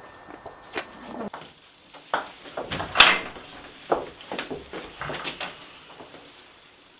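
A wooden door being handled, with footsteps in a small room: a string of knocks and clicks, the sharpest about three seconds in.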